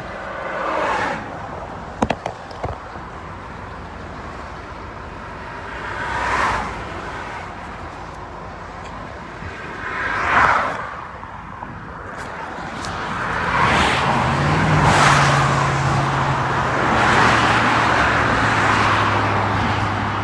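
Highway traffic passing close by: vehicles sweep past about one, six and ten seconds in, and from about thirteen seconds a heavier vehicle with a low engine hum comes by, its hum dropping in pitch as it passes. A sharp click about two seconds in.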